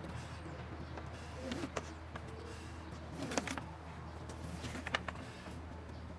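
Faint handling sounds of a cable being fed by hand along a boat's wiring run: soft rustling and a few light knocks, over a low steady hum.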